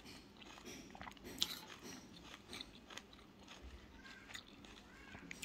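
Faint, scattered clicks and soft wet mouth sounds of someone eating spoonfuls of soft rice (modhu bhat).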